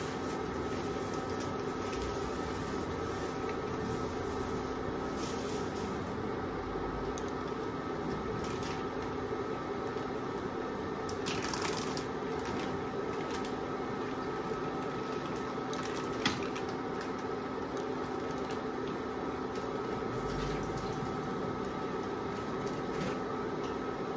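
Steady electric hum with a few fixed tones from the touch-control cooktop running under a lidded wok of crab simmering in coconut milk on medium heat, with a couple of brief clicks or pops.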